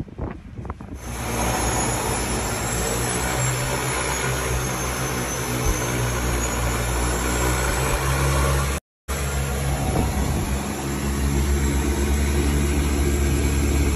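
A seaplane's turboprop engine, heard from inside the cockpit, starts up about a second in and then runs steadily with a deep drone and a high turbine whine. The low drone grows stronger near the end.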